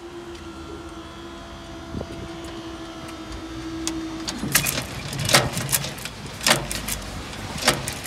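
Level crossing barrier mechanism: a steady motor hum as the barriers lift, which stops about four seconds in. It is followed by a series of sharp knocks and clunks.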